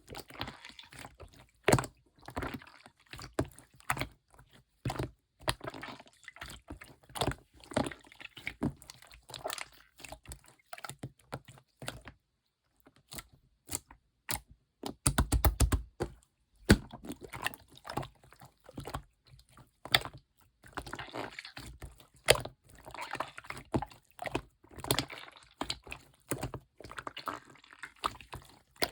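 Clear slime being squished, stretched and pressed by hand: sticky wet clicks, crackles and small air-bubble pops, pausing briefly about twelve seconds in, then a quick run of close-set pops.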